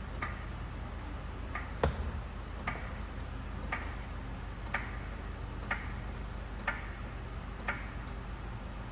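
Floor jack being pumped to lift the front of a pickup truck, a sharp click at each handle stroke about once a second, the loudest about two seconds in, over a steady low hum.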